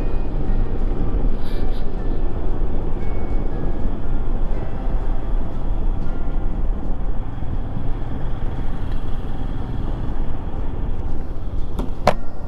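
Royal Enfield Himalayan 411 cc single-cylinder motorcycle at highway speed: a steady engine rumble and wind rush heard on the rider's helmet camera. A couple of sharp clicks just before the end.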